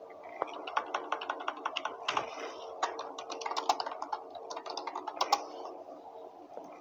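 Typing on an external computer keyboard: a quick, uneven run of key clicks that stops about five and a half seconds in.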